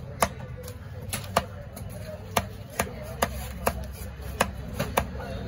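Large knife chopping trevally fillet into chunks on a wooden log chopping block: sharp, irregular knocks about two a second, over a steady low background rumble.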